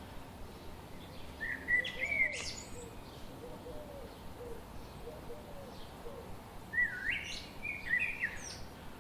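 Songbirds chirping: two louder warbling phrases, about five seconds apart, with fainter, lower calls between them over a steady background noise.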